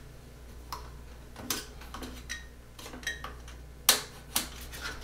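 Rubber anti-vibration foot being pushed and worked into its socket in the plastic base of a Bambu P1P 3D printer: scattered light clicks and taps of fingers on plastic, with two sharper knocks close together about four seconds in.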